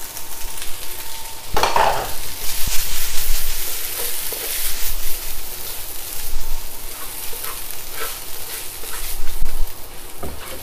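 Fried rice sizzling in a hot wok while a wooden spatula stirs and tosses it, with irregular scraping strokes over a steady hiss.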